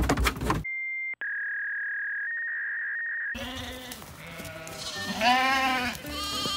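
Katahdin sheep scrambling in the back of a van at the start, then a steady electronic tone for about two and a half seconds that steps in pitch twice, then a sheep bleating loudly, once about five seconds in and again near the end.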